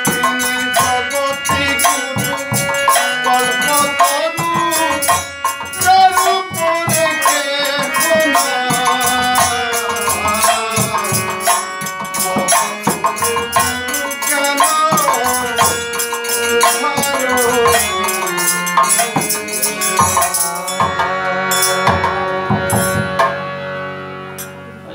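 Bengali devotional group song: a man singing to a harmonium, with a khol barrel drum and fast jingling percussion. About 21 seconds in the percussion stops and the harmonium holds its last notes as the music fades out.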